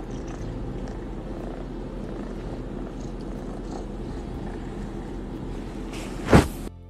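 Kitten purring close up, a steady fast-fluttering rumble. A short loud thump about six seconds in.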